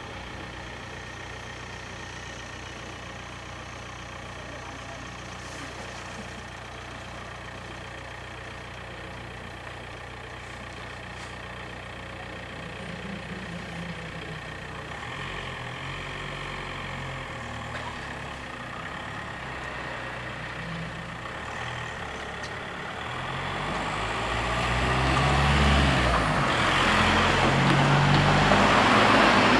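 Car engines idling at a closed level crossing, then moving off. Over the last few seconds a Mercedes SUV drives over the crossing toward the microphone, its engine and tyre noise growing louder.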